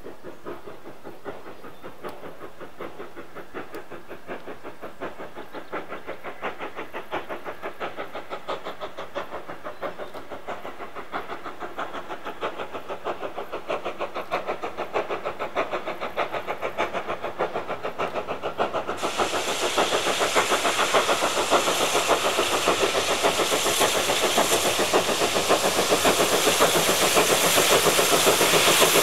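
Steam locomotive working toward the listener, its rapid, even exhaust beats growing steadily louder. A loud hiss of steam joins about two-thirds of the way in as it draws close.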